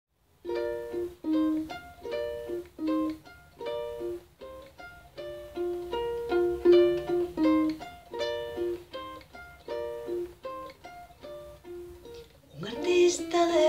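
Solo ukulele playing a melodic introduction, picked note by note. Near the end a woman's singing voice comes in over it.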